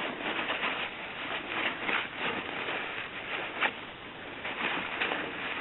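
Paper towel rubbing and rustling against a soldered metal bezel as it is dried after patina scrubbing: a continuous, irregular scratchy rustle with small scrapes.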